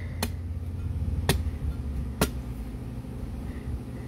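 Machete chopping into a green coconut's husk: three sharp strikes about a second apart.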